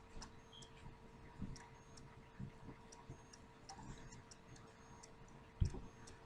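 Faint, light ticking and soft taps over a low steady hum, with one louder thump about five and a half seconds in.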